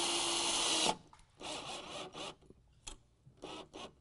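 Cordless drill/driver running steadily as it drives a screw into the underside of the desk, stopping about a second in. A few shorter, quieter noises follow.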